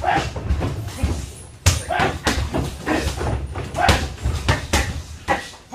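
Punches and kicks landing on handheld Thai pads and kick pads: a fast, irregular series of sharp smacks, about two a second, with the hardest strike about 1.7 seconds in.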